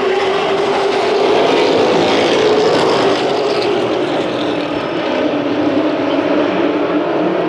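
A pack of short-track race trucks running at speed, their engines blending into one loud, steady drone.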